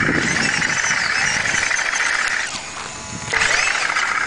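Radio-controlled airsoft model tank driving, its electric running gear giving a steady whirring buzz that stops about two and a half seconds in and starts again about a second later.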